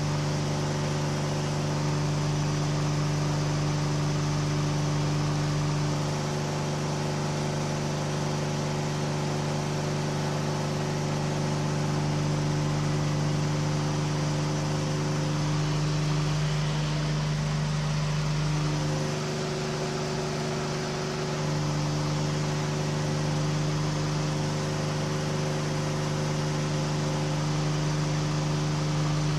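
KR2 light airplane's engine and propeller droning steadily in the cockpit during a climb. The pitch wavers and the level dips slightly about two-thirds of the way through.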